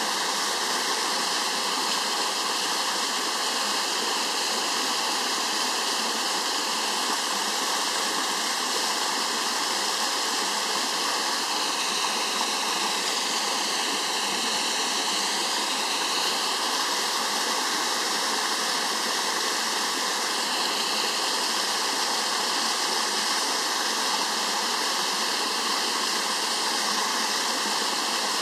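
Waterfall spilling in thin streams down a steep rock face and splashing onto boulders below: a steady rush of falling water with no low rumble.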